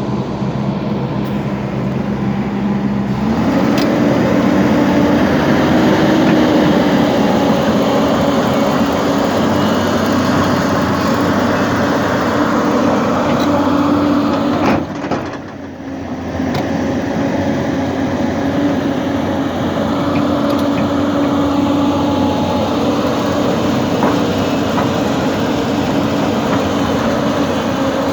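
Hyundai excavator's diesel engine running steadily; about three seconds in it steps up in pitch and gets louder, and about halfway through the sound briefly drops away before returning to the same steady note.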